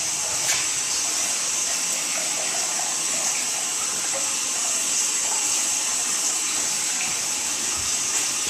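Water running steadily through an open sewer backwater valve into the drain line, a continuous even rush of water.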